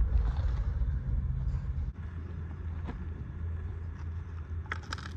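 Steady low machine hum that shifts slightly about two seconds in, with a few light metallic clicks near the end as the gear shafts of a broken manual transmission are handled among loose metal debris.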